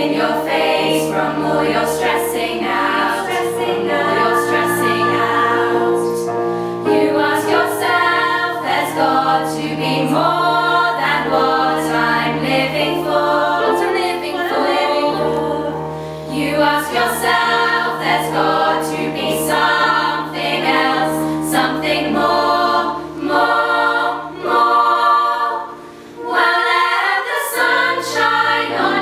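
Choral music: many voices singing together over sustained low notes, with a short lull near the end.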